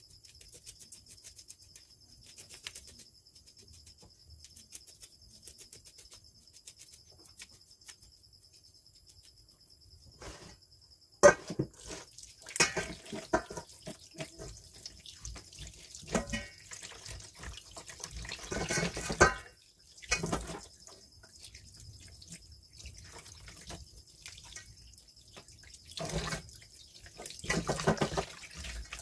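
Kitchen tap water running and splashing into a steel bowl in a stainless steel sink as a fish is rinsed and handled, coming in uneven bursts after a sharp clack about eleven seconds in. Before that, only faint scraping and ticking as a knife scales the fish.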